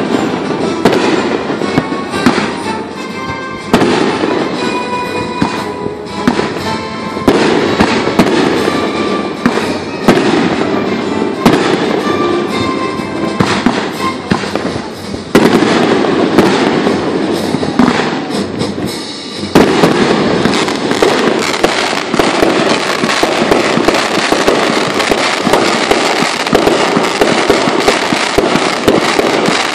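Fireworks going off in rapid succession: sharp bangs and crackles layered over one another, growing into a dense, continuous barrage in the second half. Music plays along under the bursts in the first half.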